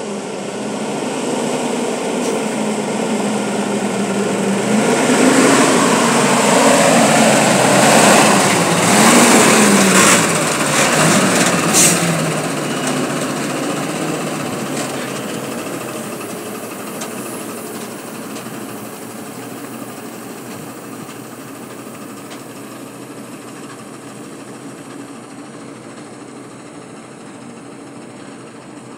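Diesel engine of a cab-over dump truck approaching and driving past, growing louder to a peak about eight to twelve seconds in, then fading steadily as it pulls away. The engine note rises and falls twice as it passes.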